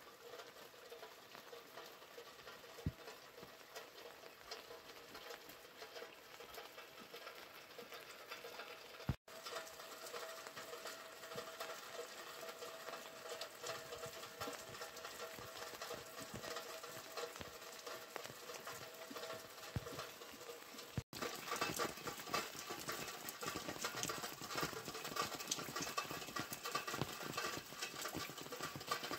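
Rain dripping and pattering steadily, many small drops falling. It gets louder and denser about two-thirds of the way through.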